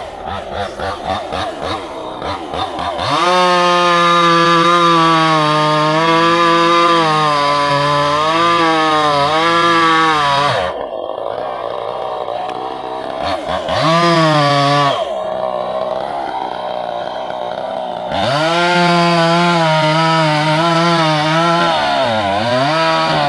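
Two-stroke chainsaw idling unevenly, then held at full throttle for about seven seconds with its pitch wavering under load as it cuts wood. It drops back to idle, revs briefly, then runs at full throttle again for about five seconds, bogging down briefly near the end.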